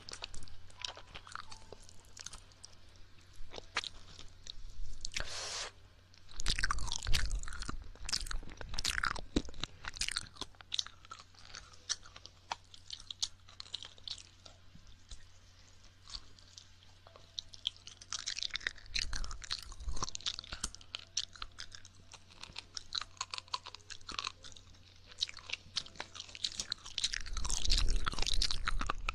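Ear-licking ASMR mouth sounds: wet licks, smacks and tongue clicks. They come in clusters, thickest about six seconds in, around twenty seconds and near the end.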